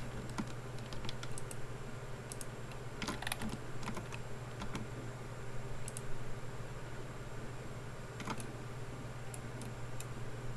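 Scattered, irregular computer keyboard key presses and mouse clicks, over a steady low hum.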